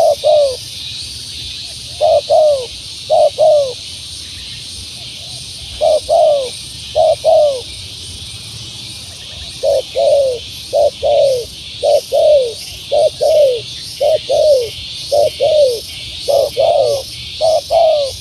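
Spotted dove (tekukur) cooing over and over, short falling coo notes in pairs and threes with brief pauses between groups, over a steady high hiss.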